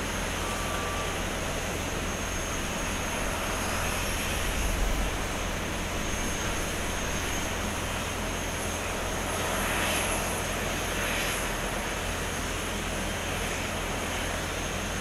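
Jet airliner running steadily: a continuous high whine over a broad rumble, swelling slightly about ten seconds in.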